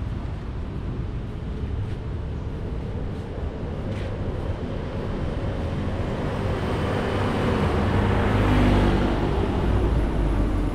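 City road traffic: cars and motorbikes driving past in a steady wash of tyre and engine noise. One vehicle grows louder and passes close about eight to nine seconds in.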